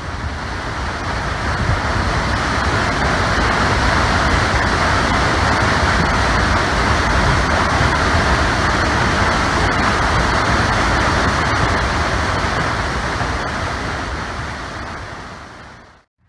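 Floodwater pouring through a dam's spillway gate, a steady loud rush of churning white water. It fades in over the first couple of seconds and fades out near the end.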